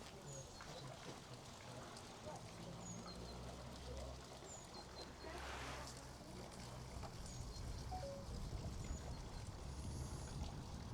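Small birds chirping now and then, over a low steady rumble at the microphone.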